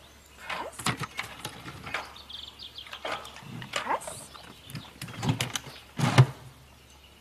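Irregular knocks and rattles, the loudest about six seconds in, with a short run of faint bird chirps near the middle.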